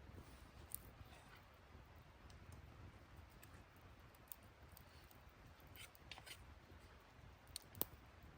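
Near silence with a few faint, scattered clicks: one a little under a second in, a small cluster around six seconds, and two near the end.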